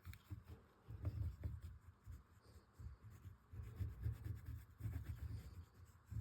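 Oil pastel rubbing across paper in short, uneven strokes.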